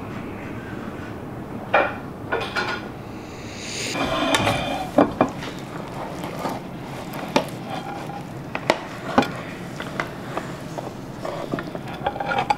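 Kitchen utensils knocking and scraping against dishes: a metal spatula in a baking dish of enchiladas and the clink of cutlery and plates, in scattered sharp clicks with a longer, noisier stretch about four seconds in.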